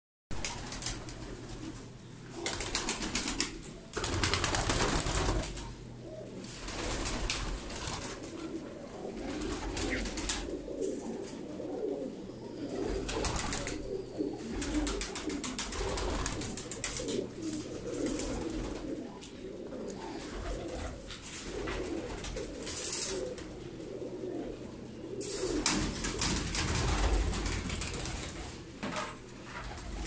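A loft full of domestic pigeons cooing together in a continuous low, warbling chorus, broken several times by short loud rustling bursts of noise.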